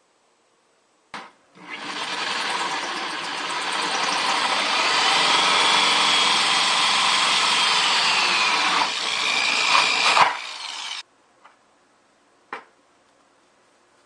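Corded electric drill with a 2¼-inch hole saw cutting through the side of a plastic 5-gallon bucket. It starts about a second and a half in, runs for about nine seconds and stops suddenly, followed by a few light clicks.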